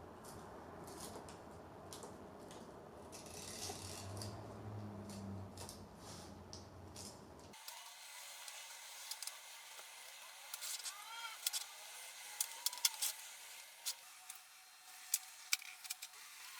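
Utility knife trimming excess window-screen mesh along the spline gasket: faint scraping, then from about halfway on a run of sharp clicks and ticks as the blade works along the frame.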